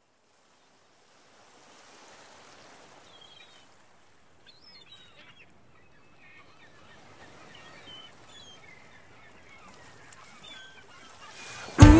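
Faint outdoor ambience with birds chirping and calling. Just before the end, a sudden loud hit as the music starts.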